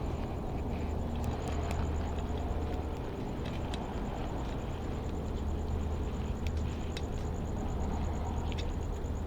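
Steady low background rumble with a few light clicks and taps, from a tire pump's screw-on head being worked onto the inner tube's valve.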